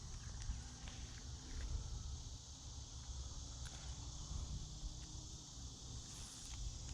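Steady high-pitched chorus of crickets, with a low rumble and a few faint clicks underneath.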